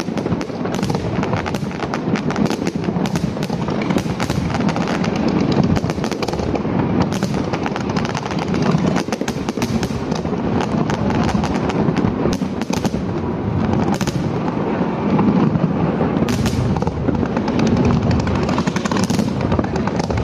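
Fireworks display: aerial shells bursting and crackling in a dense, continuous barrage of rapid, overlapping bangs.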